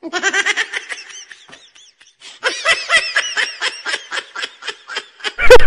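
Laughter in two bursts of quick ha-ha pulses: the first fades out after about a second and a half, and the second, after a short pause, is a steady run of about six pulses a second.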